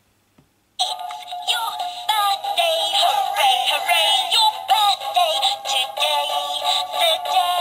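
My First Thomas & Friends Railway Pals Rosie talking toy engine playing an electronic tune with a recorded singing voice, set off by pressing its buffer button; the song starts about a second in.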